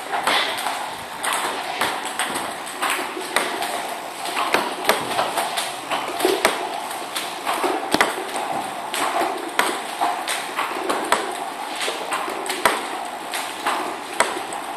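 Table tennis balls fed by a home-made ball-launching robot, clicking on the table and off a paddle in a quick, irregular run of light clicks, about two a second.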